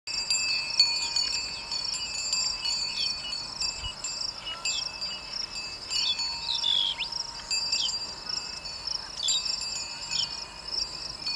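Outdoor evening chorus: insects trilling steadily and high, with many short, quick falling bird whistles scattered on top.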